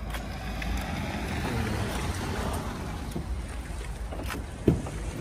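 Fabric rustling steadily as a cloth item is handled and folded, with a brief sharp knock near the end.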